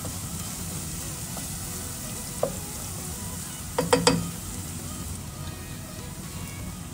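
Chopped onions sizzling steadily in hot oil in a pan while a wooden spatula stirs them, with a single knock about two and a half seconds in and a short cluster of louder knocks of the spatula against the pan about four seconds in.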